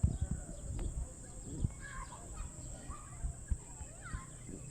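Indian ringneck parrots making soft, short chattering calls, with a few low knocks or bumps in the first half-second.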